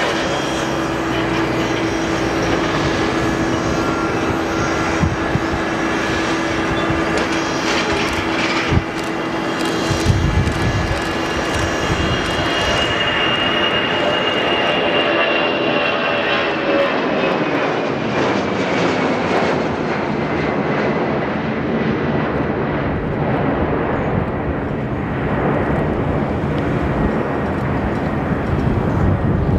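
Ilyushin Il-76 jet freighter's four turbofan engines at takeoff power: a loud, steady jet roar with a hum and a high whine. About halfway through, the whine slides down in pitch and the hiss thins as the aircraft climbs away.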